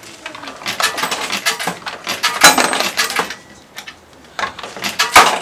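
Coins clinking and clattering in a coin-operated gambling machine: a quick run of small metallic clicks, with louder clatters about two and a half seconds in and again near the end.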